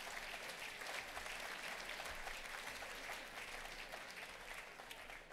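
Audience applauding, a dense patter of many hands clapping that eases off near the end.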